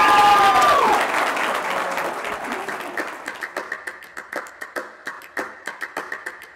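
Crowd applauding, with voices cheering over the first second; the clapping then fades and thins out to scattered individual claps.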